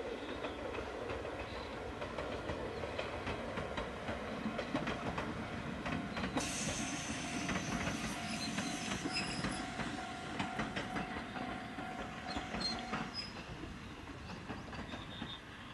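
Ichibata Electric Railway two-car electric train running past, its wheels clicking over the rail joints over a steady rumble. About halfway through, a high-pitched wheel squeal rises suddenly and lasts a few seconds.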